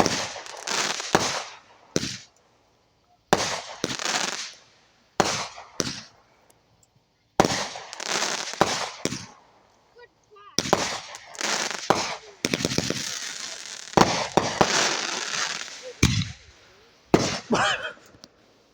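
Backyard consumer fireworks going off in a string of sharp bangs and pops every second or two, each followed by a crackling hiss that dies away.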